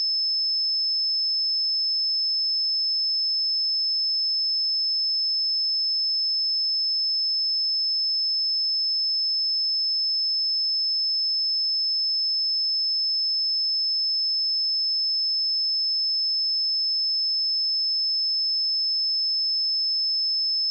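A pure 5237 Hz sine-wave test tone, a single steady high-pitched tone held without change.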